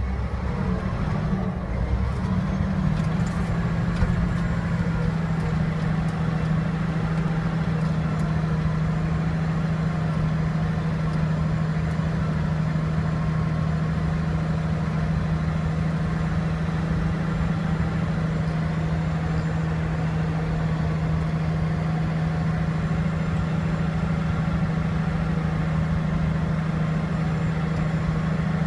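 Caterpillar D8T bulldozer's C15 six-cylinder diesel engine running steadily, heard from inside the cab as a loud even drone with a strong low hum that settles after the first couple of seconds.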